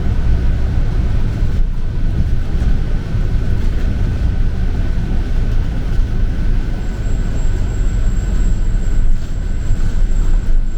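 Bus interior noise while driving: steady low engine and road rumble, with a faint steady whine and a thin high tone coming in about two-thirds of the way through.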